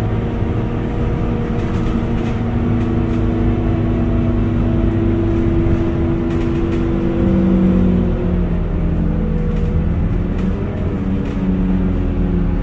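Scania K230UB city bus's diesel engine and drivetrain running under way, heard inside the passenger saloon as a steady drone with whining tones and light rattles. About halfway through the tones change, then sag slowly in pitch as the bus eases off.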